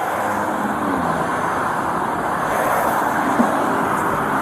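Steady roadway traffic noise: vehicles passing at speed, with a single short click about three and a half seconds in.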